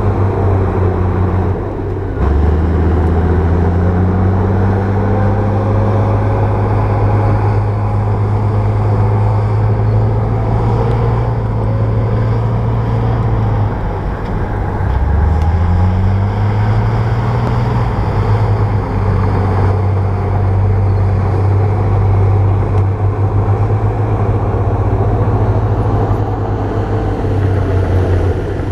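A bulldozer's diesel engine running hard, its note shifting about two seconds in and dipping then climbing again around the middle as the load changes.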